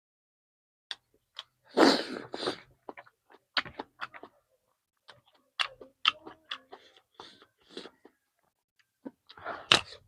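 Close-up mouth sounds of someone eating chicken: irregular chewing, lip smacks and wet clicks, with a louder cluster about two seconds in and again near the end.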